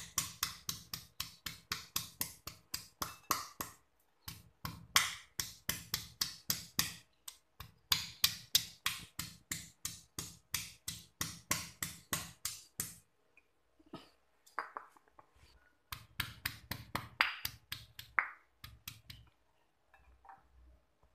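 Stone pestle pounding turmeric and spice-paste ingredients in a granite mortar: quick, even knocks of stone on stone, about three or four a second, in runs broken by short pauses. The knocks come more sparsely for the last few seconds.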